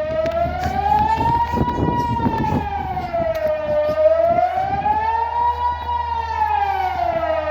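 Delta 4 civil defence siren sounding the Swiss general alarm: a continuous wailing tone that slides slowly up and down, one rise and fall about every four seconds. A brief low rumble comes about two seconds in.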